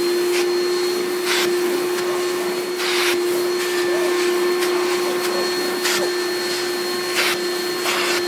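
1995 Hoover Turbopower 3 upright vacuum cleaner running with a steady motor hum, with short hissing rushes of air every second or two as a hose tool is worked over sawdust.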